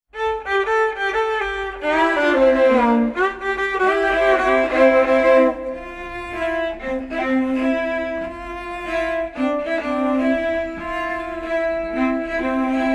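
Background music played on bowed strings, violin and cello, in long held notes; it begins abruptly out of silence.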